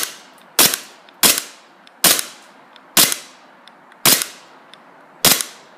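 Glock 23 green-gas blowback airsoft pistol firing about seven shots, roughly one a second, each a sharp crack with a short tail. Faint ticks are heard between the shots. The gas is cold, so the pistol is not at its peak power.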